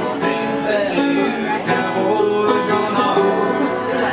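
A banjo and an acoustic guitar picking a bluegrass tune together, played live without a break.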